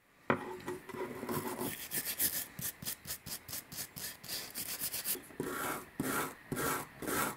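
Small wire brush scrubbing back and forth over a rusty steel screwdriver shaft and its grimy plastic handle, scraping off rust and dirt in repeated strokes, which come about two a second near the end.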